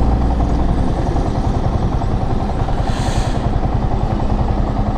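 Yamaha R15 V3's single-cylinder engine idling steadily while the bike stands still, with a brief hiss about three seconds in.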